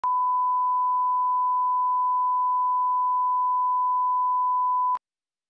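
Steady 1 kHz line-up tone, the audio reference played with colour bars at the head of a videotape for setting recording levels. It holds one unchanging pitch and cuts off abruptly about five seconds in.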